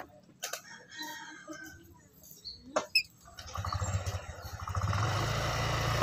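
Black-capped lory giving short squawks and chatter, with a couple of sharp clicks about halfway. A motor engine then comes up in the background over the second half.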